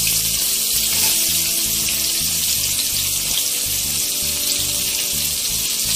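Freshly added sliced onions sizzling in hot oil in a metal kadai, a loud, steady hiss.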